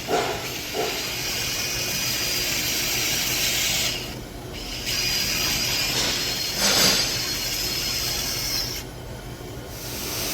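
Handheld power tool running against the built-up aluminum weld on a cylinder head, a steady scraping whir with two short dips about four and nine seconds in.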